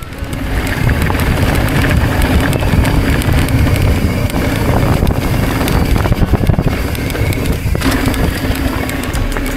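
Wind buffeting the action camera's microphone over the steady rumble of mountain-bike tyres rolling across sand and then a dirt trail.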